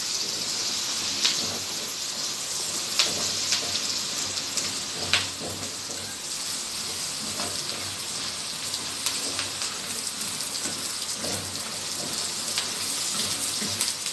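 Garlic and onion sizzling as they sauté in a frying pan, a steady hiss with a few sharp clicks.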